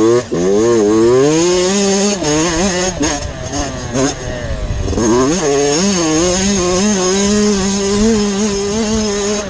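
Yamaha YZ65 65cc two-stroke motocross engine revving hard, pitch climbing and wavering with the throttle. The revs drop briefly about four seconds in, then climb again and hold high.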